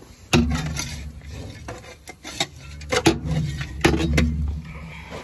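A small metal foldable shovel scraping and knocking against a metal cattle creep feeder while clearing out feed: irregular sharp clanks, the loudest a little past the middle, with scraping between them.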